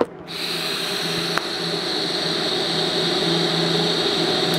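DC TIG welding arc at about 20 amps on thin razor blades, a steady hiss that starts just after the beginning, with one short tick about a second and a half in.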